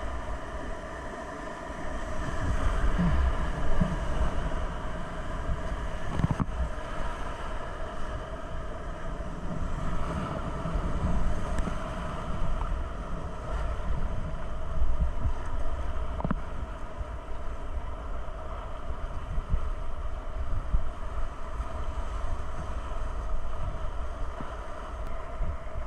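Whitewater rapids rushing around a kayak, a steady roar with low rumbling wind noise on the microphone. Two sharp knocks, about six and sixteen seconds in.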